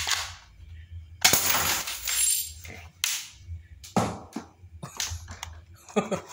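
Spring airsoft pistol (BM P377) firing a 6 mm BB: a sharp crack about a second in, followed by a clatter of the glass bottle target being hit and knocked over. Then a few short clicks and knocks as the pistol's slide is worked and handled.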